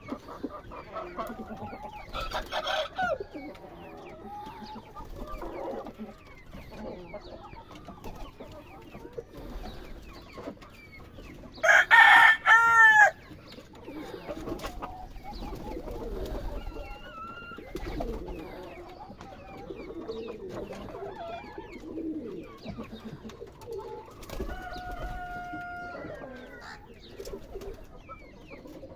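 Ayam Cemani chickens clucking, with many short calls throughout. About twelve seconds in a rooster crows once, loudly, the loudest sound here. Near the end there is a shorter held call.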